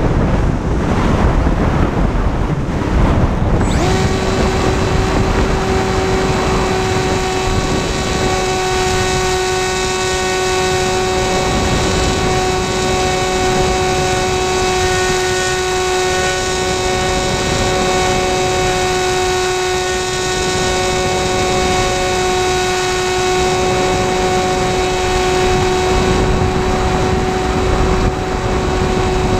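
Wind rushing over the onboard camera of a Sky Eye RC FPV plane. About four seconds in, its electric motor and propeller start and run at a steady high whine, with the wind still on the microphone.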